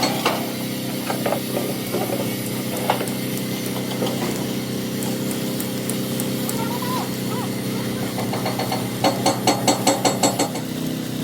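An engine running steadily, with a few single metal knocks and, near the end, a run of rapid strikes, about six a second, lasting about a second and a half.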